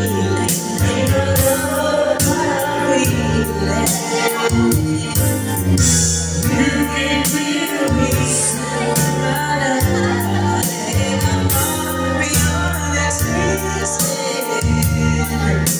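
A man and a woman singing a duet into microphones, trading lines and joining together, over amplified backing music with a steady beat.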